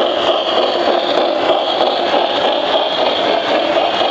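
Lionel O-gauge model train running past close by, a Reading T1 steam locomotive with a DC motor followed by its boxcars: a steady whir and rattle of metal wheels rolling on the track.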